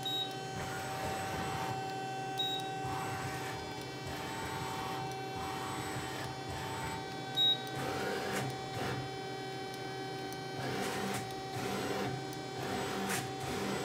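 Hyundai-Kia SKT160A CNC lathe running under power: a steady electrical hum with servo motors whining up and down as the machine moves, mostly in the second half. Three short high blips come through, the loudest about halfway.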